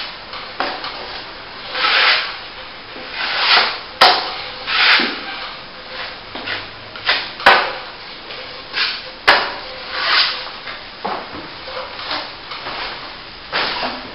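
Steel plastering trowel scraping and spreading plaster over plasterboard patches in a string of separate strokes, with three sharp knocks in between.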